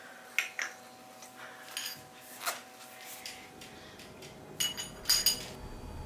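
Scattered sharp clinks and knocks of small hard objects, a few seconds apart. A louder cluster near the end rings briefly, like glass or crockery.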